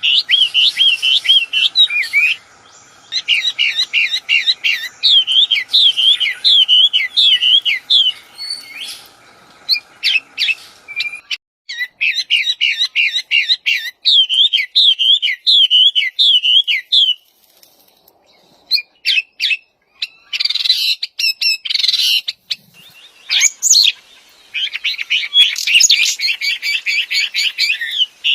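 A wambi songbird singing loud, rapid runs of quick whistled notes that rise and fall, in bursts of a few seconds with short pauses between them. A faint steady hum sits under the song and stops about eleven seconds in.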